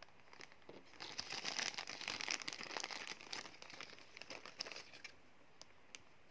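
Clear plastic zip-lock bag crinkling as it is handled: a run of crackling that starts about a second in and dies away after about four seconds, then a couple of single crackles near the end.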